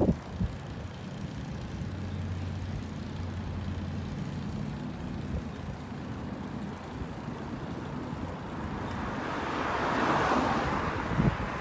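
Road traffic: a vehicle engine running with a low steady hum, then a vehicle passing, its noise swelling and fading near the end.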